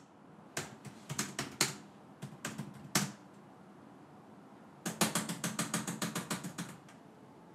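Typing: two runs of rapid key clicks with a pause of about two seconds between them.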